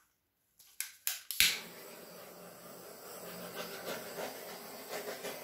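Small handheld butane torch lighting with a few sharp clicks, the loudest about a second and a half in, then a steady hissing flame.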